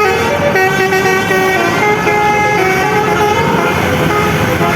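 A bus's telolet basuri musical air horns playing a melody: a run of held horn notes stepping up and down in pitch, each lasting a fraction of a second.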